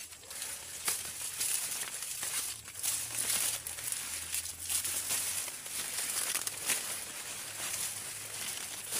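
Dry maize leaves and stalks rustling and crackling in short, irregular bursts as corn plants are bent over by hand.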